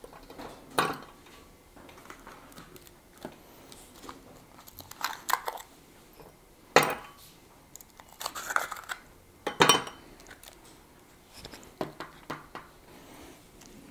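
Ice cubes taken from a plastic ice tray and dropped into a stemmed wine glass: several separate clinks and knocks, a second or more apart.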